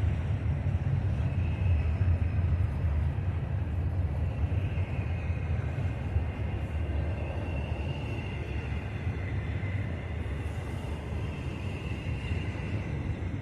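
Wind buffeting the microphone: a gusty low rumble over steady noise, easing slightly toward the end, with faint thin high tones in the middle.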